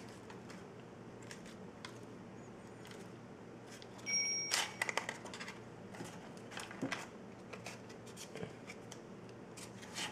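A paper-wrapped business card rubbing and scraping across wet silicone on the bottom of a wooden case, with light paper rustles and small taps from the hands. About four seconds in comes the loudest burst of scraping, with a brief high tone over it.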